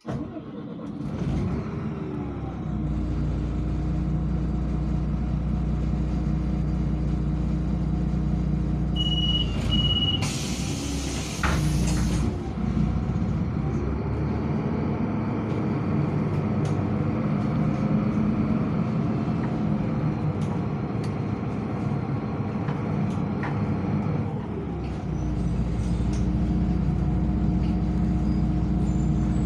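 City bus heard from inside the passenger cabin: the engine runs steadily, its pitch rising and falling several times as the bus drives. About ten seconds in come two short high beeps, then a loud hiss of compressed air lasting about two seconds.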